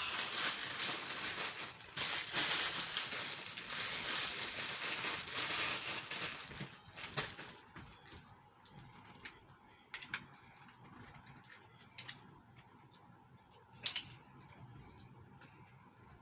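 Close rustling and handling noise for the first several seconds, then quieter, with a few scattered light clicks or taps.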